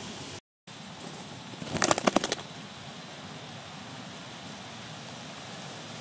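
A short burst of rapid wing flaps from a bird, about ten quick beats within half a second, about two seconds in, over a steady hiss of outdoor background noise. The sound cuts out completely for a moment near the start.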